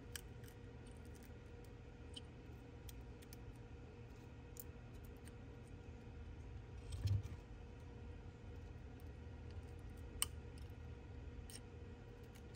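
Faint scattered clicks and scrapes of a blade scraping leftover broken back-glass fragments off an iPhone frame, with a dull knock about seven seconds in and a sharp click about ten seconds in, over a faint steady hum.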